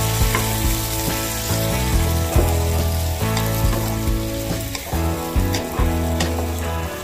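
Squid and garlic sizzling in a hot pot as a wooden spatula stirs them, with light knocks and scrapes of the spatula against the pan. Background music plays along.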